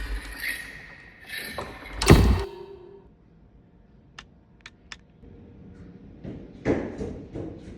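Home-made foley sound effects: two sliding, scraping sounds, then a loud slam with a brief ringing tone about two seconds in, three small sharp clicks, and a run of rhythmic thumps near the end.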